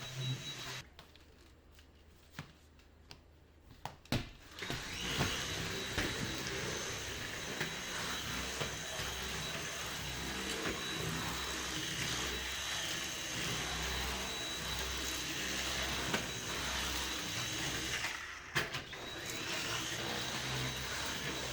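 Vacuum cleaner running with a steady high whine. It cuts out about a second in; after a few quieter seconds with some clicks and knocks, it starts again and runs on, with a short break near the end.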